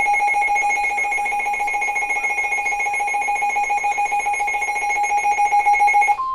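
Weather radio's alert alarm going off for a tornado warning: a loud, shrill electronic tone pulsing rapidly. It cuts off just before the end, and a single steady tone carries on.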